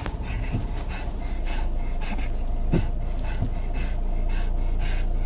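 An elderly Shih Tzu panting hard in a steady rhythm, worked up and overheated, over the low steady rumble of a moving car.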